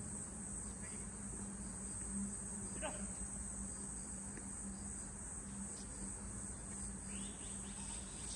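Insects chirring steadily in one continuous high-pitched drone, with a faint low hum underneath.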